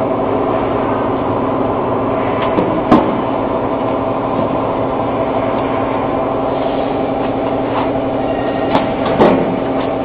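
The motor of a QT4-30B mobile concrete block making machine running with a steady hum, with a few sharp knocks over it, the loudest about three seconds in and others near the end.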